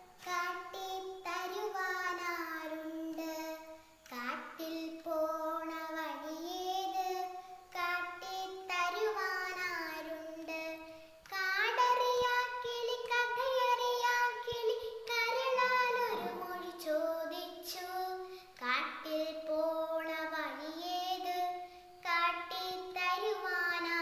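A young girl's solo voice singing a Malayalam poem in a chanted, melodic recitation style, in phrases with short breaths between them and one long held note around the middle.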